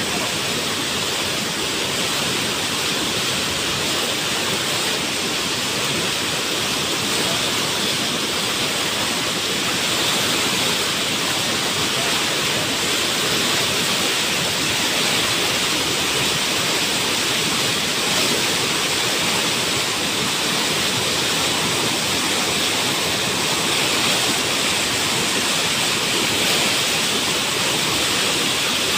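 Muddy floodwater rushing through a wide riverbed in churning standing waves: a steady, loud rush of water.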